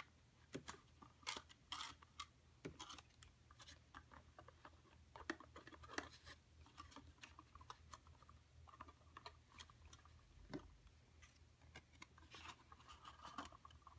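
Faint scratchy rubbing and soft paper clicks: a glue stick wiped over paper tabs, then the paper pieces handled and fitted together, with a slightly busier patch near the end.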